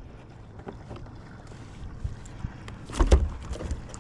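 A few knocks and thumps against a plastic kayak hull, the loudest about three seconds in, over a faint steady hiss.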